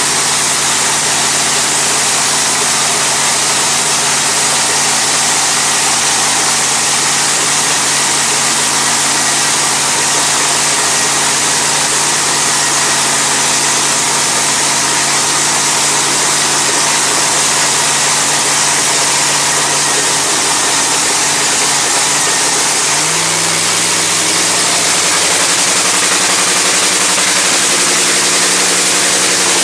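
John Force's nitromethane-burning funny car engine, a supercharged Hemi V8, running loudly at a steady idle during a pit warm-up. About 23 seconds in, its speed steps up to a higher idle and holds there.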